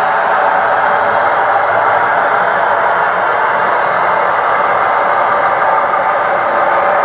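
HO-scale Piko model train running over the layout's track: a steady, even running noise from its wheels and motor.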